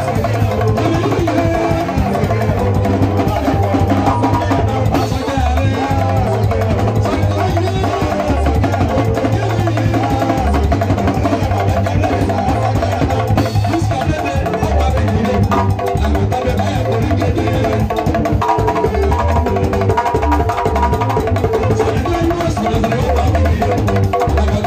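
Music with drums and percussion over a strong, steady bass line.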